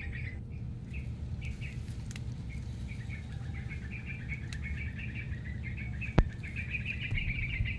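Small birds chirping in quick repeated notes, over a steady low rumble, with one sharp click about six seconds in.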